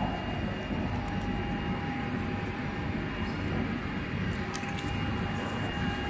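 Steady mechanical hum and rumble of background machinery, carrying a thin high tone and a fainter mid tone. A few faint clicks in the second half, as the plastic fan motor housing is handled.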